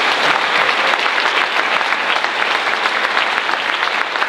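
Audience applauding: many people clapping steadily throughout.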